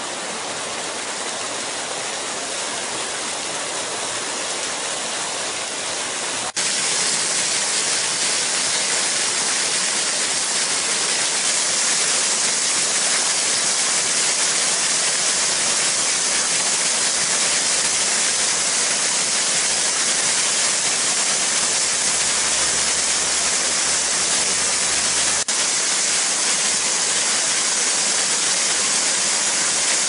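Bigăr waterfall: many thin streams of water splashing down a moss-covered rock dome into a pool, a steady rush of falling water, running low after a long drought. It gets louder about six seconds in.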